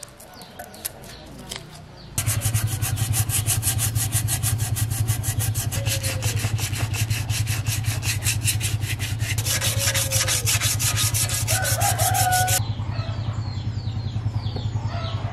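Hand sanding of a painted steel BMX frame: fast, even back-and-forth rubbing strokes against the tubing, starting about two seconds in and stopping abruptly near the end as the paint is taken down to bare metal.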